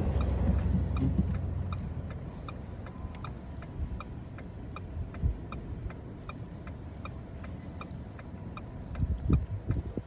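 Car's turn-signal indicator clicking steadily about twice a second. Under it, the low rumble of the car's engine and tyres fades over the first two seconds as the car slows, and a few low thumps come near the end.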